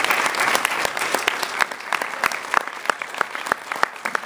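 Audience applauding: a dense patter of many hands clapping, with single sharp claps standing out, a little fuller in the first second.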